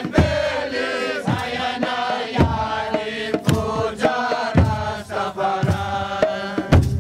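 Rastafarian Nyabinghi chanting: several voices singing together over hand drums, with heavy bass-drum strokes falling roughly every half-second to second.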